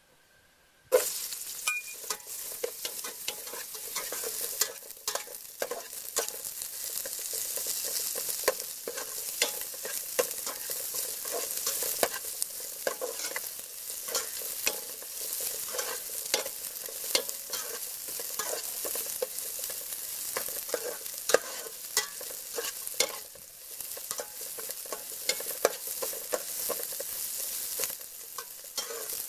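Sliced lemongrass and chili sizzling in a hot aluminium pot, starting suddenly about a second in, while a metal spatula stirs and scrapes them, clicking against the pot.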